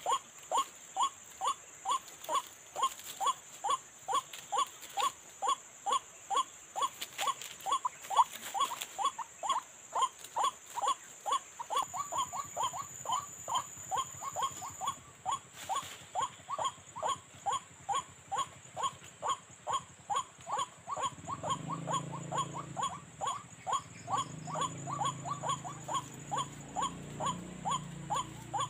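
White-breasted waterhen (ruak-ruak) call: one short note repeated evenly, about twice a second, with no let-up.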